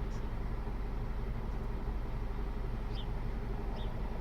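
Car engine idling steadily, heard from inside the cabin as a low hum, with a couple of faint ticks about three and four seconds in.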